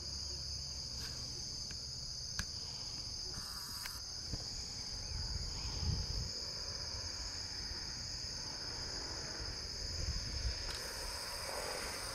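Insects chirring in one steady, high-pitched drone, with a low rumble underneath.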